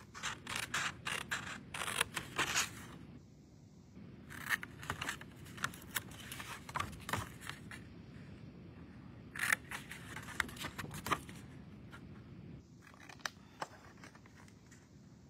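Small scissors cutting through cardstock: three runs of quick snips with short pauses between, then one or two lone snips near the end.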